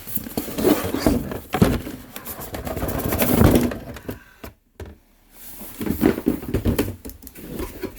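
Cardboard box and packaging being handled: irregular rustling, scraping and knocks as the contents are taken out, with a brief break in the middle.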